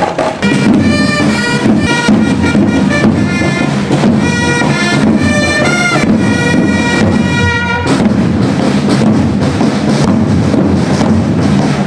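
Procession music: marching drums beating a steady, rapid pattern under a reedy wind-instrument melody. The melody stops about 8 seconds in and the drums carry on alone.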